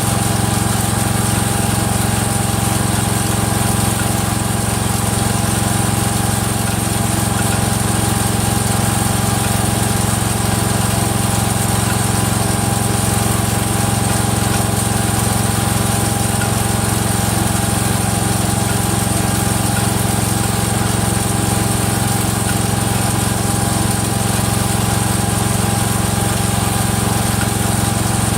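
Rebuilt Kohler single-cylinder engine of a Cub Cadet 102 garden tractor running at a steady speed. Any clicking in it is one that the owner traces to the front pulley coming apart, not to the rod.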